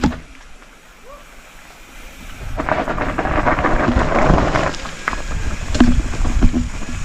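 Mountain bike tyres rolling over a rocky dirt trail, with wind on the helmet-mounted microphone. Quiet for the first two seconds, then a loud rough noise from about two and a half seconds in, with a few sharp knocks near the end.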